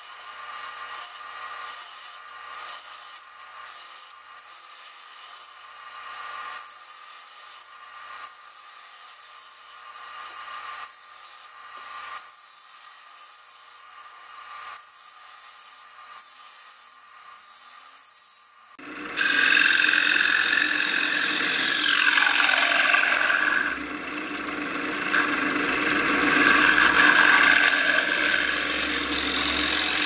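Turning tool cutting into a spinning block of scrap 2x8 on a wood lathe, hollowing out its centre as shavings peel off. About nineteen seconds in the cut suddenly becomes much louder and fuller, with a ringing tone that slides down in pitch as the tool bites deeper.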